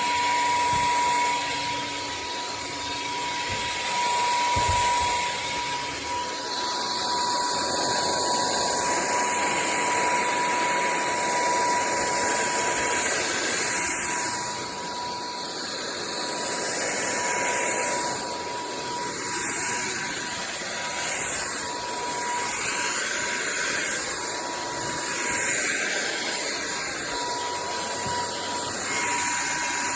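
Sulean X8 cordless stick vacuum running: a steady motor whine over rushing air, its loudness swelling and easing every few seconds.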